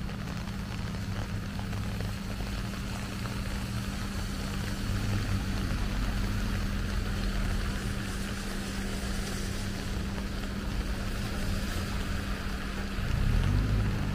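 Traffic on a rain-soaked street: a steady hiss of rain and wet tyres over the low rumble of car engines, swelling near the end as a vehicle passes close.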